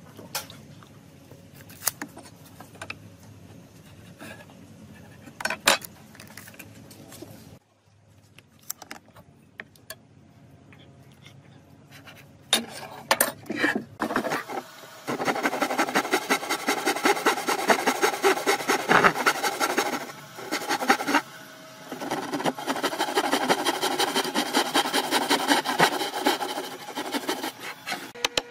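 Hand saw cutting into a wooden board with quick, steady back-and-forth rasping strokes, in two runs with a short pause between them, sawing down the marked shoulder of a notch for a joint. Before the sawing there are only scattered light clicks and knocks as the board is marked out.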